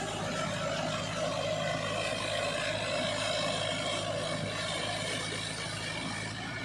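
Mahindra Arjun 555 tractor's four-cylinder diesel engine running steadily under load, pulling a rotavator that churns mud and water while puddling a flooded paddy field.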